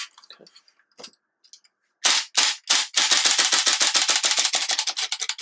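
GHK AKMS gas blowback airsoft rifle firing: three separate shots about two seconds in, then a rapid full-auto burst of about two and a half seconds that stops at the end.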